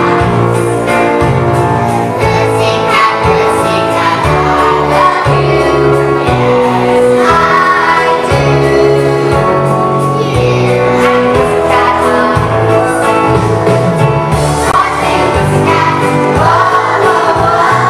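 A song with a bass line that moves from note to note, sung by a group of young children in unison, loud and continuous.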